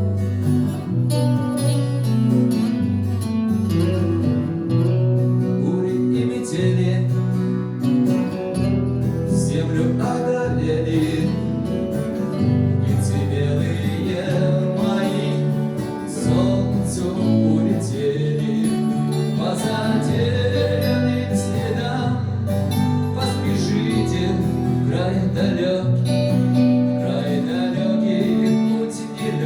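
Music: a guitar-led song played over long, sustained bass notes.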